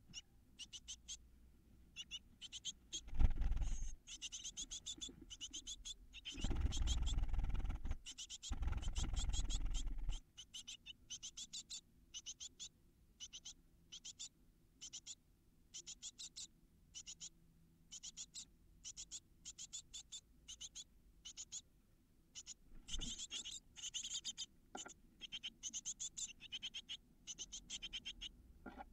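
Great tit nestlings close to fledging cheeping inside a wooden nest box, short high notes repeated in quick runs. Bursts of scuffling and rustling come as the chicks jostle and move against the nesting material: one a few seconds in, a longer stretch from about a quarter of the way through, and another about two-thirds of the way through.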